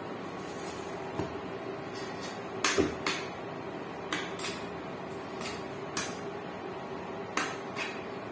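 Irregular sharp knocks and clinks of kitchen items, about ten in all: a bottle set down on the counter and a utensil knocking in a frying pan. A steady hum runs underneath.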